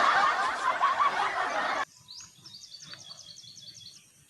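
A person laughing breathily, cut off abruptly just under two seconds in. Then a bird sings a quick run of about ten high chirps.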